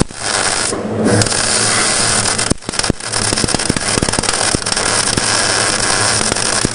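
Electric arc welding: the arc crackling and spitting steadily as metal is welded, breaking off briefly twice and striking up again.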